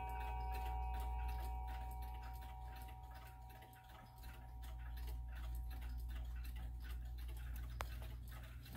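Howard Miller triple chime mantel clock ticking steadily while the last notes of its chime ring on and fade away. A single sharper click comes near the end, just before the chime starts again.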